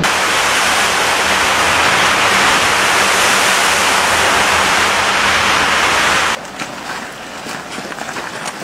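A steady, loud rushing hiss echoing inside a tunnel, which cuts off abruptly about six seconds in. After it, quieter scattered crunching footsteps on a forest path.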